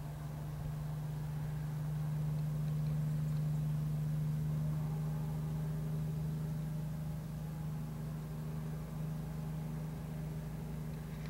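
A vehicle engine idling: a steady low hum that swells slightly a second or two in, then eases back.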